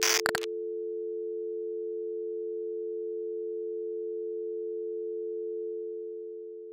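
A short burst of TV-static hiss, then a steady electronic tone of a few close pitches that sounds like a test tone or dial tone. It begins to fade out about a second before the end.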